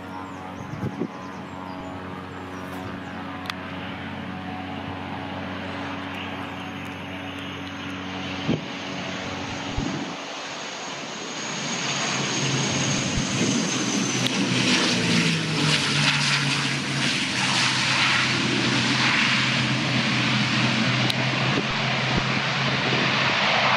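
ATR twin-turboprop airliner's engines and propellers droning steadily with a high whine on approach. About halfway through the sound swells as it passes close and lands, and its pitch drops. The propellers then roar loudly as it rolls out along the runway.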